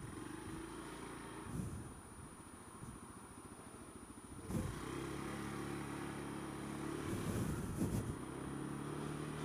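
Honda Dio scooter engine running at low speed in slow traffic, faint at first. About halfway through, a short knock is followed by a louder, steady engine note.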